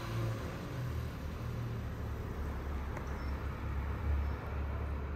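Low, uneven outdoor rumble with a faint click about three seconds in.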